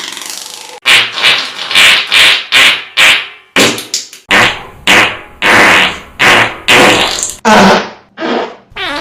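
Fart sound effect: a rapid string of about fifteen short blasts, roughly two a second, each starting abruptly and trailing off.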